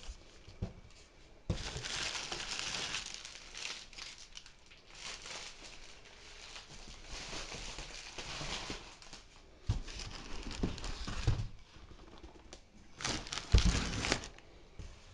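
Plastic bubble-wrap air-cushion packaging crinkling and rustling in several bursts as it is pulled out of a cardboard shipping box. A dull thump comes near the end.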